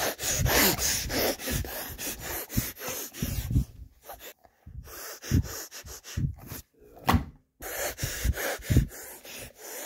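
A person sniffing loudly and repeatedly, short quick sniffs in runs with brief pauses, as a shark hand puppet smelling out a trail.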